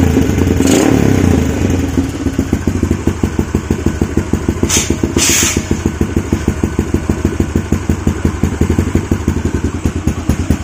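Yamaha 135LC single-cylinder four-stroke engine, freshly rebuilt with a 62 mm big-bore kit, running just after being started. It is revved briefly near the start, then drops to a low, evenly pulsing idle that is close to stalling. Two short hissing bursts come about five seconds in.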